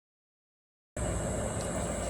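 Dead silence, then from about a second in a steady background hiss with a faint, thin high-pitched whine.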